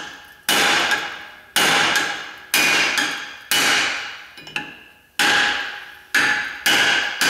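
Hammer blows on the rear brake rotor and hub of a truck axle: about nine strikes, roughly one a second, each giving a loud metallic ring that dies away, as the rotor is knocked loose.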